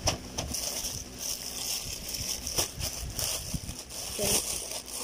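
Plastic courier bag and wrapping rustling and crinkling as they are handled and pulled open, with scattered small crackles and taps.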